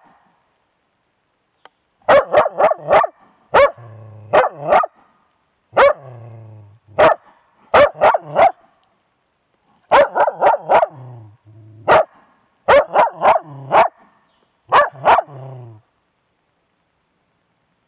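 Young moose-hunting dog bay-barking at a cow moose and calf, recorded close up from a camera on the dog itself. The barks come in quick runs of two to five with short pauses between, starting about two seconds in and stopping a couple of seconds before the end.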